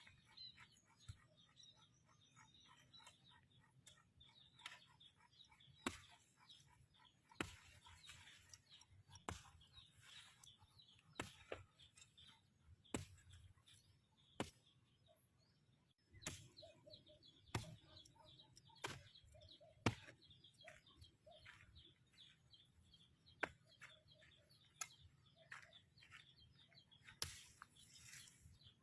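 Sharp clicks at irregular intervals, every second or two, over faint, rapid bird chirping.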